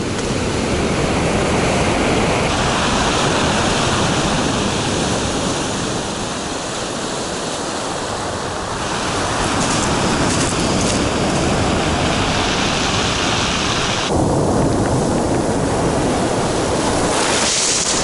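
Storm surf on a pebble beach: waves breaking and foam washing up over the shingle in a continuous loud rush that swells and eases.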